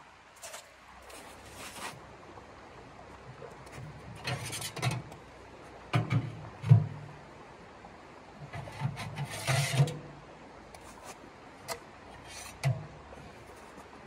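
Irregular knocks and clatter from a small sheet-metal wood stove and its chimney pipe being handled, with footsteps crunching on icy snow, over a steady rush of creek water. The loudest knocks come about six to seven seconds in.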